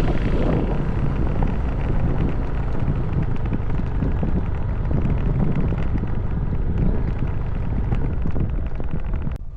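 Vehicle on the move with heavy wind buffeting the microphone: a steady rumble and rushing hiss.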